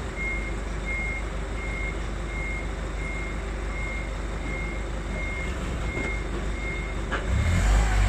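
Evenly spaced electronic beeps at one high pitch, a little more than one a second, over a steady low rumble; the beeping stops near the end.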